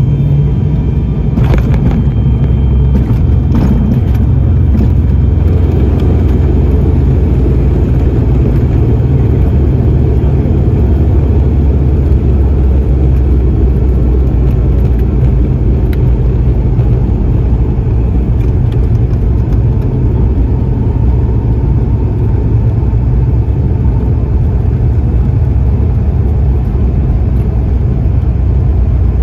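Cabin noise of an ATR twin-turboprop airliner rolling along the runway after touchdown: a loud, steady low rumble of engines, propellers and wheels. A few light clicks come in the first few seconds.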